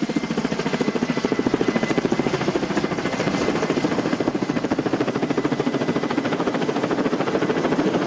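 Firefighting helicopter flying overhead, its rotor beating in a rapid, steady chop, with a faint high turbine whine in the first few seconds.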